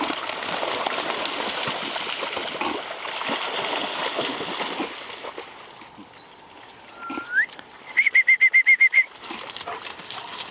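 Dogs splashing as they wade through shallow lake water for about the first five seconds. Later a bird calls: a short rising whistle, then a fast trill of about eight notes lasting a second.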